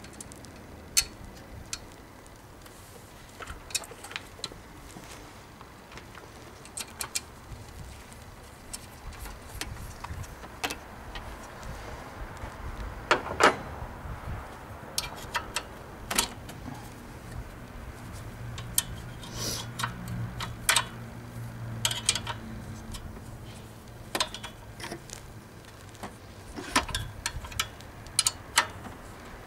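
Wrenches clinking and clicking against bolts and metal brackets as the alternator is unbolted, in scattered irregular knocks, with a low hum in the background for a few seconds past the middle.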